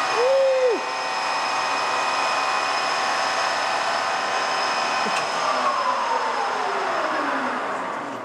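Mazak Mate 14 x 40 toolroom lathe spindle running at its top speed of 2,000 RPM, a steady whine with several high tones that a speaker calls screaming. About five seconds in it is switched off, and the whine falls in pitch and fades as the spindle coasts down.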